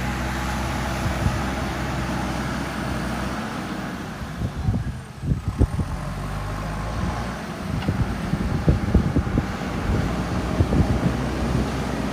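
JCB 3DX backhoe loader's diesel engine running steadily. From about four seconds in, irregular low thumps and rumbles take over.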